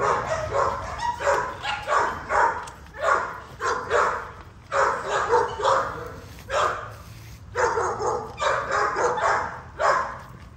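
XL bully puppies growling and yipping in short, rapid bursts while eating from a shared pan of raw ground beef.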